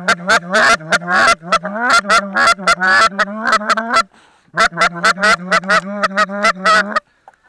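Goose call blown close by in rapid clucks and honks, about six or seven notes a second, imitating Canada geese to draw in an incoming flock. The calling breaks off briefly around four seconds in, then resumes and stops shortly before the end.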